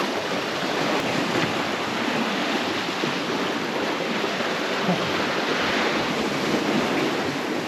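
Sea waves washing on the shore: a steady, even rushing noise with no distinct breaks.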